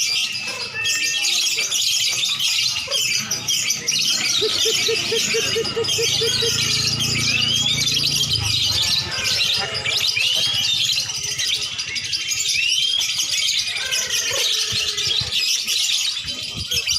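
Many caged lovebirds and oriental magpie-robins singing and chattering at once: a dense, unbroken tangle of high chirps, whistles and trills. A low hum runs underneath for a few seconds in the middle.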